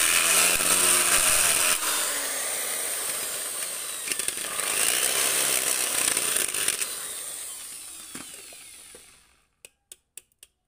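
Electric hand drill running and boring holes through the thin steel of an empty spray-paint can. It dips briefly about four seconds in, runs on, then winds down and stops about nine seconds in, followed by a few light clicks.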